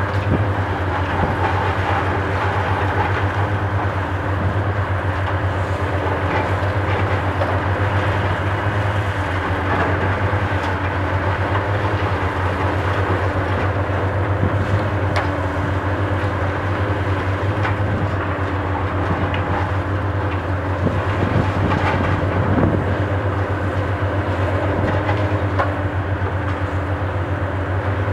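Diesel engine of a high-reach demolition excavator running steadily, with scattered knocks and crunches of the building being broken up, a cluster of them about three quarters of the way through.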